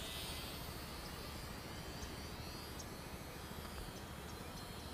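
Faint, distant high whine of the Volantex Mini Trainstar micro RC airplane's small electric motor and propeller in flight, growing weaker, over steady outdoor background hiss.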